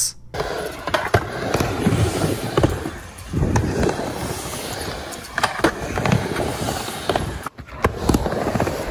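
Skateboard wheels rolling back and forth on a halfpipe ramp, a steady rumbling hiss broken by several sharp clacks of the board and wheels against the ramp.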